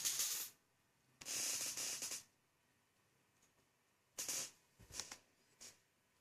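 A person's breaths close to the microphone: a few short hissy puffs, the longest about a second, with silence between them.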